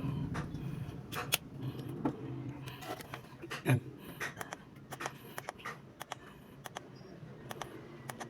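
Scattered sharp clicks and light clatter of a battery analyzer's clips and buttons being handled while it is hooked up to an e-bike battery and read.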